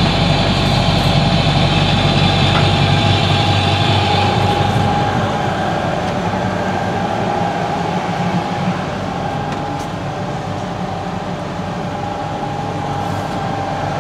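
Sailboat's inboard diesel engine running steadily under way, a constant low drone with a steady higher hum over it. For the first four seconds or so a hiss rides on top, then fades.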